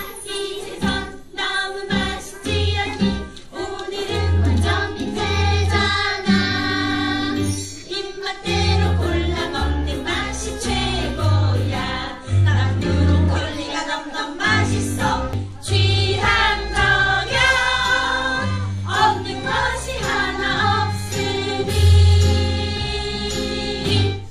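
A musical number: a recorded accompaniment with a heavy bass line and a group of voices singing over it, stopping abruptly near the end.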